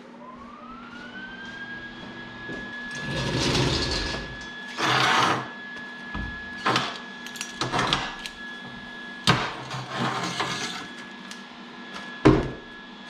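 A small electric motor spins up in the first second or two, its pitch rising to a steady high whine that holds throughout, while metal parts and tools are handled with clanks, knocks and rattles as the mini bike's carburetor and intake are taken off.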